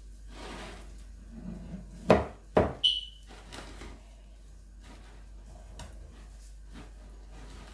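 Bread dough being mixed by hand and with a wooden spoon in a glass bowl: soft squelching and scraping, with three sharp knocks a little over two seconds in, the last one with a brief high ringing tone.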